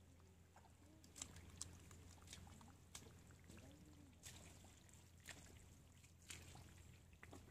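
Faint wet squelching and dripping of hands and legs working through soft, watery mud, with a scattering of short, sharp wet smacks.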